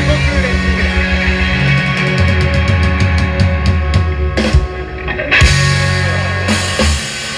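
A live rock band plays an instrumental passage on electric guitar, bass and drum kit, with a run of rapid, even drum hits building up. The band breaks off suddenly, lands a short hit, then strikes a loud chord that rings for about a second and a half before dropping away.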